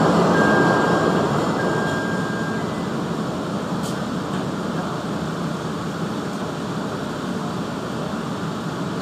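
Chicago 'L' rapid-transit train car with a steady rumbling hum from its equipment as it stands and then begins to pull away near the end. A high steady tone beeps in long stretches over the first two and a half seconds, and there is a single light click about four seconds in.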